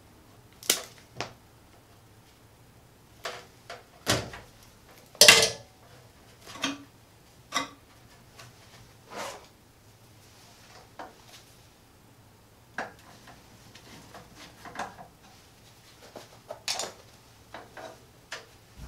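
Irregular clicks, knocks and light scrapes from a screwdriver and stiff wires being handled in a metal breaker panel while the wires are fed to a double-pole breaker; the loudest knock comes about five seconds in.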